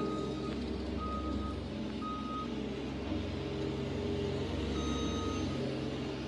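ASV RT-30 Posi-Track compact track loader's engine running steadily while its backup alarm beeps: three short beeps about a second apart in the first half and one more near the end, the sign that the loader is moving in reverse.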